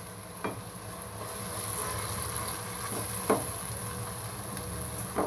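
Potato, onion and tomato masala sizzling in a pot as it is stirred with a spoon, with a few short scrapes of the spoon against the pot.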